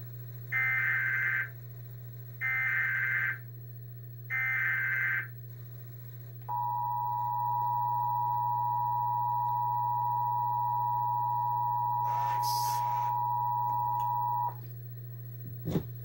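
Emergency Alert System Required Monthly Test tones from a television speaker: three short bursts of warbling SAME header data, then the steady two-tone attention signal for about eight seconds. A brief noise sounds over the end of the attention tone, and a short thump comes just before the end.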